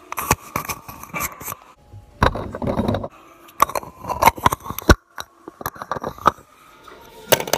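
White plastic threaded pipe fittings being handled: irregular sharp clicks and knocks of plastic against plastic, with a longer rubbing scrape about two seconds in.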